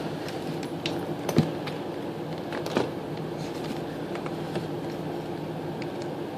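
A few light clicks and knocks from a flathead screwdriver working a slotted carburetor float bowl screw, the loudest about a second and a half in, over a steady fan-like hum.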